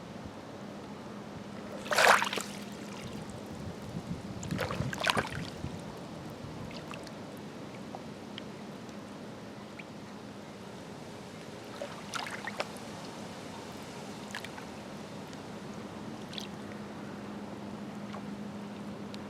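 Small waves lapping and splashing against a rocky shoreline in irregular slaps, the loudest about two seconds in, over a steady low hum.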